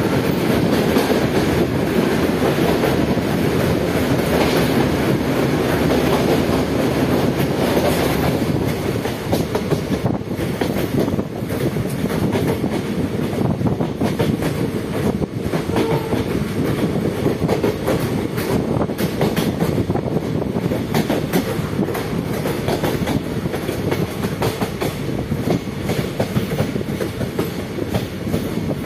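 A train running along the track, its wheels clattering steadily over the rails, a little louder for the first eight seconds or so.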